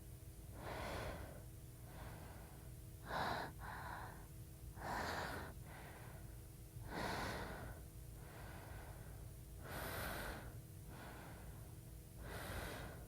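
A woman breathing audibly close to a phone microphone, a breath every two seconds or so, over a faint steady hum.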